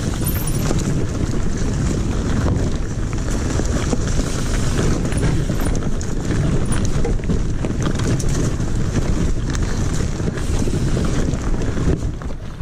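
Mountain bike riding fast down a dirt singletrack: wind buffeting the camera microphone over the rumble of the tyres on dirt, with the bike clattering over bumps.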